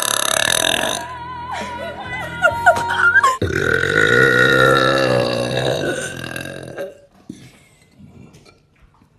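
A woman burping: a long, low, drawn-out burp of about three seconds, starting about three and a half seconds in.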